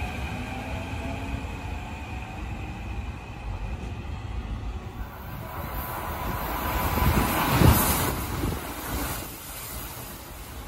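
Keikyu 1000 series electric train pulling into the station platform: a rush of wheels on rail with a steady tone builds, is loudest as the front cars pass about three-quarters of the way through, then eases as the train slows. At first, the fading motor tones of another train leaving the station can be heard.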